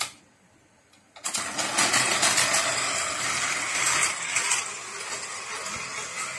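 A click, then from about a second in the steady whirring and rattling of a battery-powered Plarail toy train model of the Osaka Metro 400 series, its small motor running and its wheels on plastic track.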